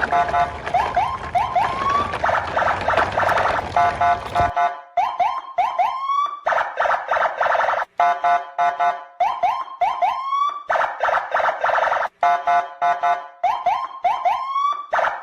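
Electronic siren-and-alarm sound effect: a cycle of short rising whoops followed by a rapid pulsing tone, repeating about every two seconds. A background hiss under it stops about four seconds in.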